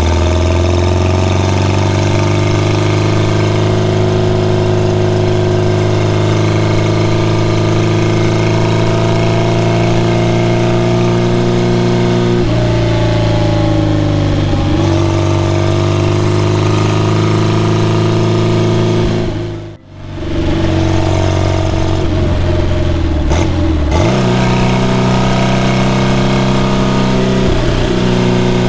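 1969 Porsche 912's air-cooled flat-four engine running on a drive, its note climbing at first, then holding steady and falling and rising again a couple of times. The sound drops out briefly about two-thirds of the way through.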